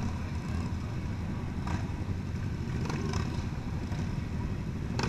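Motorcycle engines running steadily at low speed, the loudest being the rider's own bike under the camera, with other motorcycles riding close ahead. A few light clicks come about two and three seconds in.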